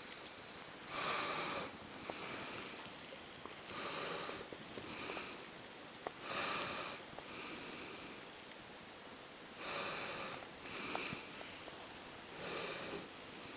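Shaded golden Persian kitten snoring while asleep. Each breath is a short noisy snore, and they come mostly in pairs, a louder one followed by a softer one, about every three seconds.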